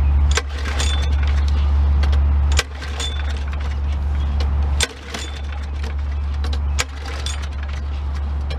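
Push mower's small single-cylinder engine running, a loud low rumble that builds slowly and then drops off sharply about every two seconds, with light clicks and clinks over it.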